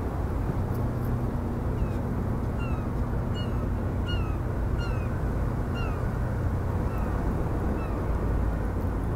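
A bird calling over and over in short, falling, mewing notes, about two a second, over a steady low mechanical rumble.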